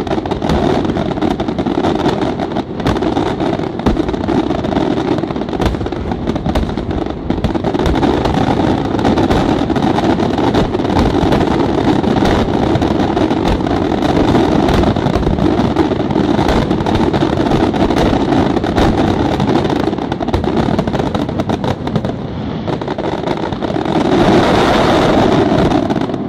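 Aerial fireworks firing a dense, continuous barrage: rapid overlapping shell bursts and crackle run together into a steady rumble. A brighter crackling swell comes near the end.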